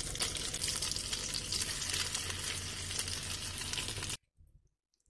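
Coated pieces of Alaska pollock frying in hot oil in a pan: a dense, steady sizzle that cuts off suddenly about four seconds in.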